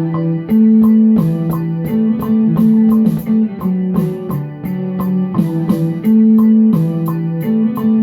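A looped music sample with a plucked, guitar-like melody repeating, played back from a Maschine drum machine. A crisp high ticking rhythm, like hi-hats, joins about half a second in.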